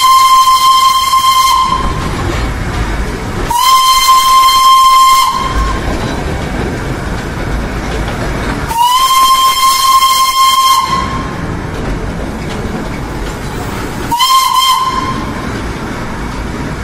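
Darjeeling Himalayan Railway narrow-gauge steam locomotive sounding its steam whistle four times on one steady note: three long blasts of about two seconds each and a shorter one near the end. Between the blasts is the steady rumble of the train running.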